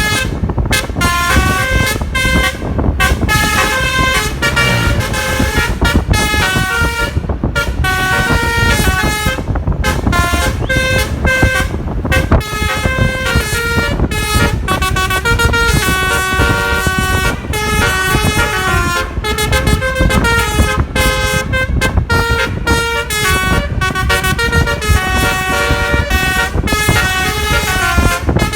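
Telolet bus horn, a multi-tone air horn playing a melody of short stepping notes over and over, with a low steady rumble beneath.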